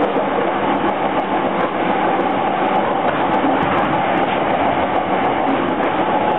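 Yamanote Line E231-series electric train heard from inside the car while running between stations: a steady rumble of wheels on rail with light, scattered ticks and a faint steady whine.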